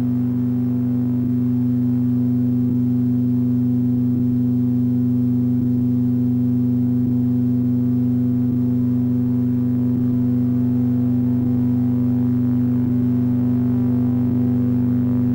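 A steady low synthesizer drone: a deep unchanging hum of a few held tones, with a faint soft pulse about every second and a half.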